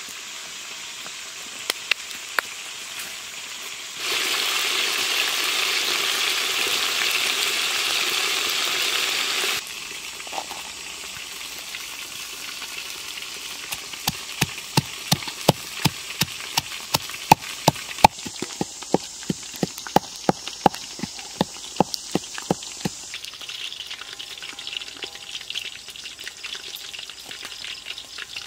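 Chicken frying in a steel wok over a wood fire: a steady sizzle with a few cracks, which turns into a much louder sizzle about four seconds in for some five seconds. Later a pestle pounds chilies, garlic and salt in a mortar, with knocks about two a second for roughly nine seconds.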